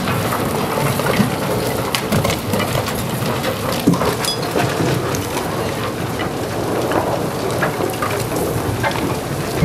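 Herrenknecht tunnel boring machine grinding through rock behind the portal's shotcrete wall: a steady rumbling noise scattered with sharp cracks and clicks as the shotcrete crumbles and fragments fall.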